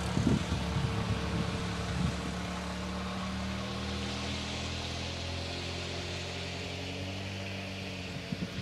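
Steady low drone of an engine running, several held tones with a little drift in pitch, with a few short low thumps near the start.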